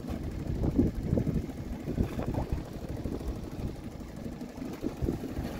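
Fishing boat's outboard motor idling at trolling speed, a low uneven rumble.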